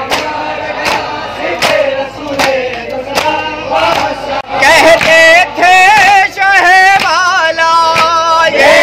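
Matam chest-beating: many open hands slap bare chests in unison about once every 0.8 s, under voices chanting a noha. About halfway through, a loud solo male voice takes over, singing a noha lament with a strongly wavering pitch.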